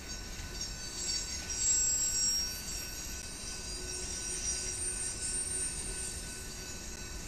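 Freight train of tank cars rolling past, with a low rumble and the wheels squealing in high, wavering tones that swell about two seconds in and fade by about five seconds.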